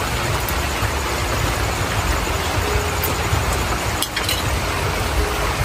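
Heavy rain falling steadily: an even hiss with a low rumble beneath it, and a couple of faint clicks about four seconds in.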